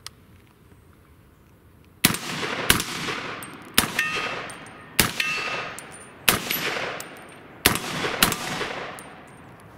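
Seven shots from a 300 AAC Blackout AR-15 pistol with an 8.5-inch barrel, fired at an uneven pace after about two quiet seconds, each followed by a decaying echo. A faint metallic ring follows a few of the shots.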